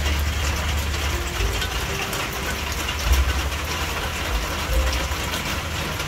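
Heavy rain falling steadily in a dense patter, over a low rumble that swells and fades.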